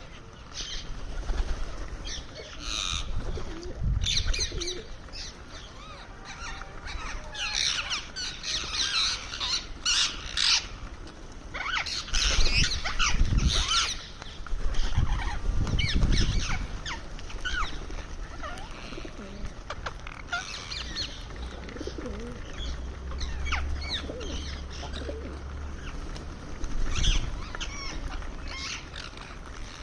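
Indian ringneck parrot giving many short, high chirps and squawky calls while feeding, with a few dull low thuds among them.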